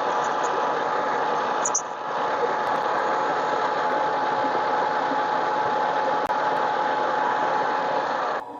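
Harbor Freight mini lathe running steadily, a constant whine over an even machine noise, with a brief dip about two seconds in; the sound cuts off suddenly near the end.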